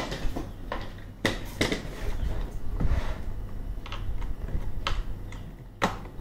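Irregular clicks and knocks of a plastic robot vacuum being handled, lifted from its cardboard box and turned over, with fingers working at its side brush, over a low steady hum.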